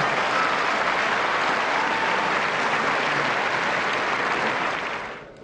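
Tennis crowd applauding steadily, dying away near the end.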